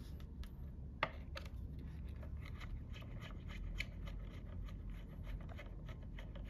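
Faint scratching and small ticks of a screw being backed out of a Stihl MS 461 chainsaw's flywheel housing, with one sharper click about a second in.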